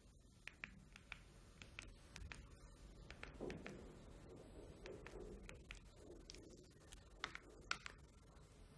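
Faint, scattered clicks of a mobile phone's keys being pressed, over quiet room tone, with two sharper clicks near the end.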